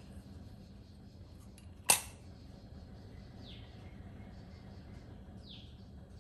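A single sharp metallic click about two seconds in as an aluminium Bialetti Brikka moka pot is turned over in the hands, followed later by two short falling chirps.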